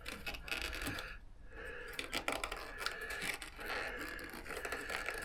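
Hand work on motorcycle parts: irregular small metallic clicks and scraping as hoses, clamps and fittings are handled, busiest from about two seconds in.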